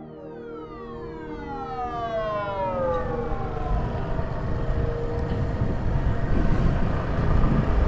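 A falling pitch sweep over about three seconds, like music slowing to a stop, then the low rumble of wind and road noise from a moving motorcycle, growing louder.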